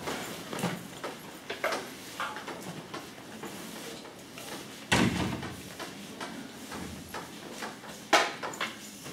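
Chalk tapping and scraping on a blackboard as words are written, a run of short knocks and scratches. A louder thump about five seconds in and a sharp knock just after eight seconds stand out above the writing.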